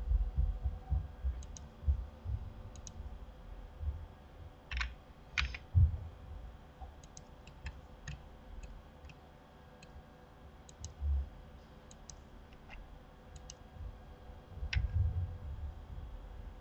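Computer mouse and keyboard clicks: scattered single sharp clicks and short runs of keystrokes, with a few dull low thumps and a faint steady hum underneath.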